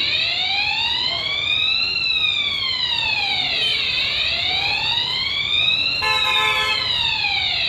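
Electronic fire alarm siren wailing, its pitch sliding slowly up and down about every four seconds, sounding as a system test. A short steady tone sounds over it about six seconds in.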